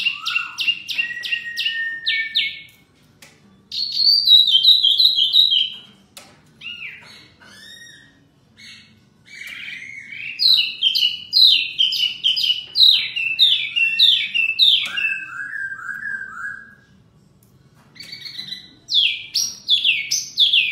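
Caged wambi mini (hwa mei mini) and poksay laughingthrush singing back and forth: loud phrases of fast repeated whistled and chattering notes, each broken off by a pause of a second or two before the next phrase answers.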